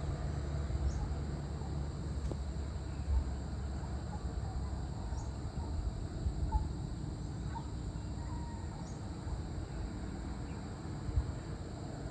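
Outdoor ambience at dusk: a steady low rumble, with a few faint bird chirps in the middle and three short, high insect chirps spaced a few seconds apart.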